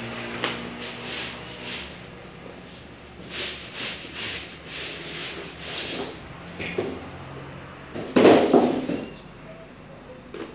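A box and its packing being handled during an unboxing: a series of short rubbing and scraping sounds, the loudest and longest about eight seconds in.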